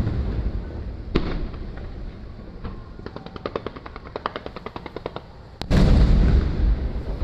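Aerial firework shells bursting: a sharp bang about a second in, a rapid run of crackling pops in the middle, then a loud deep boom with a rolling rumble near the end.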